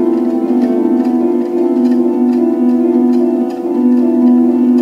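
Background music: plucked, harp-like notes over held tones, with a gently changing melody.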